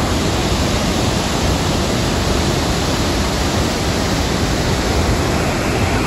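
Aharbal waterfall, a large river fall plunging into a rocky gorge, giving a loud, steady rush of crashing white water.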